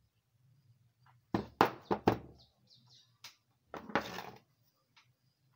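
Sharp metallic clicks and knocks of pliers working against a brass ball valve body to pull out its ball, with three close clicks about a second and a half in and a short scraping clatter near four seconds in.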